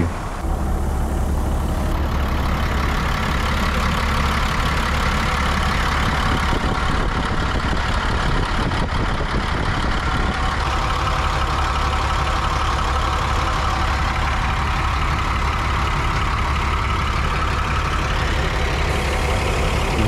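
International DT466 inline-six diesel engine idling steadily.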